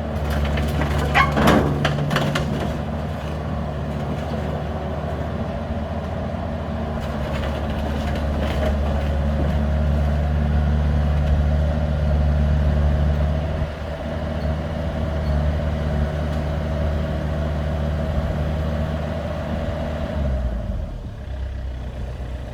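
Excavator's diesel engine running steadily under load, with sharp metallic clanks about a second in and again around eight seconds in. The engine note drops off near the end.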